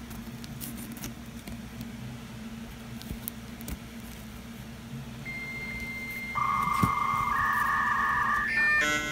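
Electronic beep tones over a faint low hum. A thin high beep starts about halfway through, then a louder steady lower tone holds for about two seconds. A slightly higher tone and a quick run of electronic tones follow near the end.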